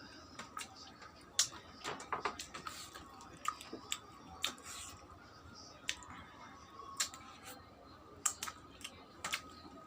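Close-up eating sounds: irregular wet chewing and mouth smacks while eating chicken curry with puri.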